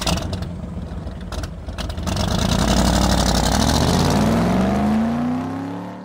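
A car engine starts with a clatter, then revs up with a steadily rising pitch for a few seconds before fading away.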